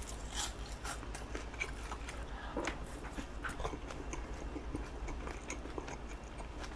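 A person chewing food close to the microphone, with soft, irregular small clicks and smacks.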